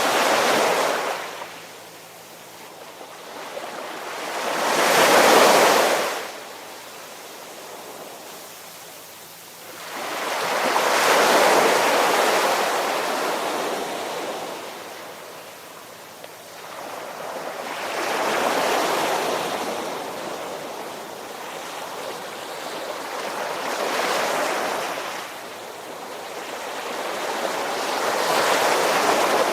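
Ocean waves breaking and washing back, one surge of surf about every six seconds, six in all.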